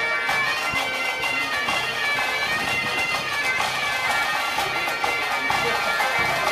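Bagpipe playing a tune over a steady drone.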